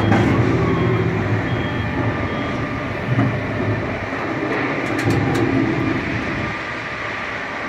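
Tower crane drive machinery running: a steady mechanical rumble from the motors and gears that swells and eases, with faint steady whines above it, dropping a little near the end.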